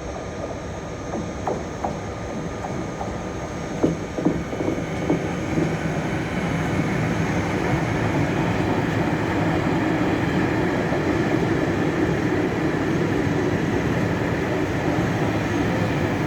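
Mixed freight trains passing on the rails: wheels knock over rail joints in a series of sharp clacks in the first few seconds, then the rolling of the wagons settles into a louder, steady rumble.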